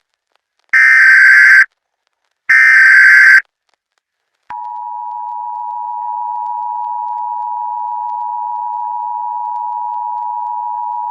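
Emergency Alert System tones: two loud bursts of SAME header data, a screechy warble about a second long each, that encode the alert. About four and a half seconds in, the steady two-tone EAS attention signal begins and holds.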